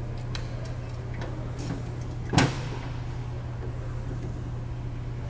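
Small clicks and one sharp clack about two and a half seconds in, over a steady low hum: diagnostic cables and connectors being handled and plugged into the truck.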